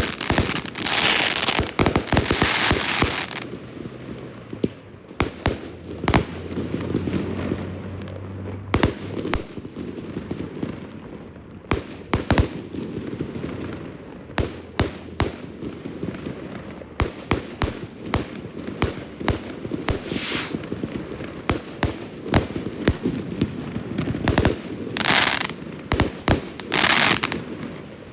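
Fireworks display: a rapid run of aerial shell bursts and bangs over a steady rumble, with a few longer hissing spells near the start and again near the end.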